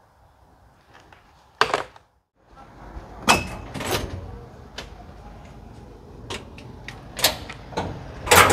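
A door being opened and handled: a sharp click in near silence, then, from about two and a half seconds in, a steady background hiss with several sharp clicks and knocks, the loudest near the end.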